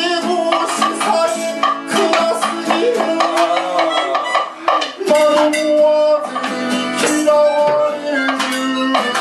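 Live band music: a man singing over a strummed acoustic guitar, with hand percussion of drums and tambourine and long held notes from a keyboard harmonica (melodica).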